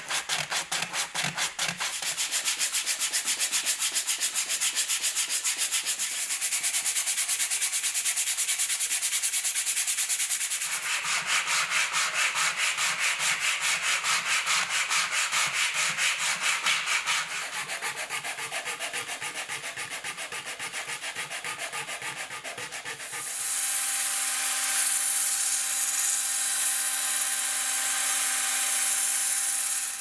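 Sandpaper rubbed by hand over the wooden parts of an old manual coffee grinder in quick, even back-and-forth strokes. About three-quarters of the way through this gives way to a power tool running steadily as it spins a sanding drum against the wood.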